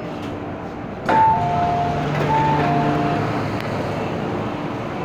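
MTR M-Train's doors opening: a sudden clunk about a second in as they release, then the two-tone door chime (a high note, then a lower one) sounding twice, over the carriage's steady hum.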